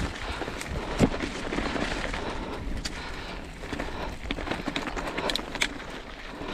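Mountain bike riding down a rough dirt trail: a steady rumble of tyres over dirt and rock, with scattered clatters and knocks from the bike as it hits bumps, one sharp knock about a second in.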